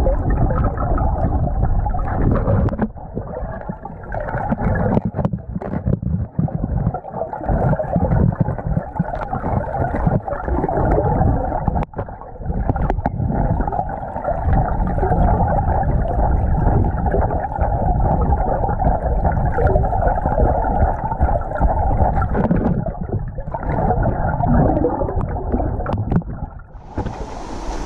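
Muffled underwater sound of a creek, a steady rushing and gurgling of moving water, with a few sharp knocks as a gloved hand works over the submerged bedrock. Near the end it breaks into open air and turns to wind hiss.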